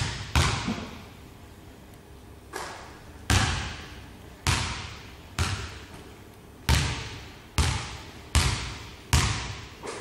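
Basketball bouncing on a hardwood gym floor, about ten bounces at an uneven pace with a pause near the start, each hit echoing in the hall.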